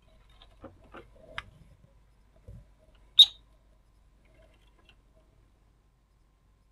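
Tools being handled on a workbench: a few light clicks and taps, a dull knock, then one sharp, high click about three seconds in. These are a magnifying glass and a soldering iron being picked up and set to a driver board.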